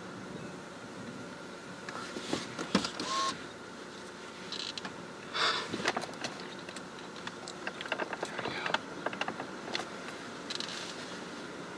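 Scattered knocks, clicks and short scraping rustles of handling noise over a steady background hum. There is a run of quick clicks in the second half.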